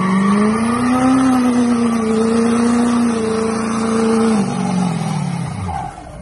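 Duramax V8 turbo-diesel pickup doing a burnout, its engine held at high revs at a steady pitch that rises slightly about a second in. The revs then fall away over the last two seconds. Behind the engine, the rear tyres are spinning and squealing on the pavement.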